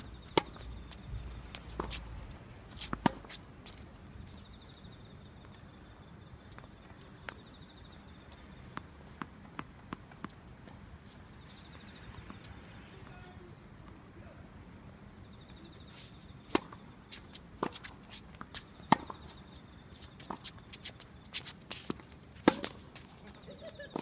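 Tennis rally on a hard court: racket strikes and ball bounces as sharp pops, clustered in the first few seconds and again through the last eight, with lighter clicks in between. Bell crickets (suzumushi) trill high in several short spells underneath.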